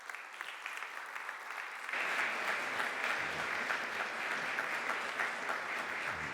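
Audience applauding, building up and getting fuller about two seconds in.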